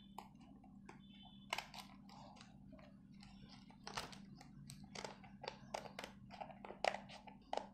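Scissors cutting through a paper envelope: a run of short, irregular snips and paper crackle, picked up close by a clip-on collar mic.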